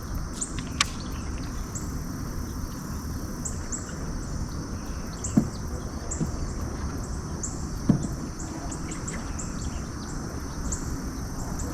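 Outdoor ambience: a steady low rumble under high, short chirps repeated throughout, with a few sharp clicks, the loudest about five and a half and eight seconds in.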